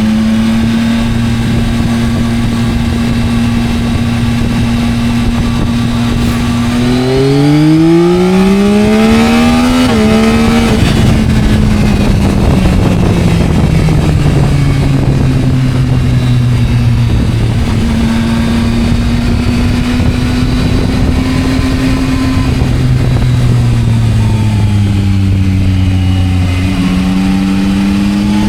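Yamaha Tracer 9's 890 cc inline three-cylinder engine running under way. It holds a steady pitch for several seconds, rises as the bike accelerates, then drops back and eases off gradually, with further changes in pitch near the end.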